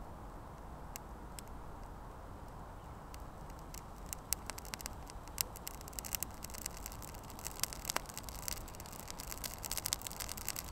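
Newly lit campfire tinder of dry grass and birch bark over a firelighter cube catching and crackling. The snaps are sparse at first and come more often from about four seconds in.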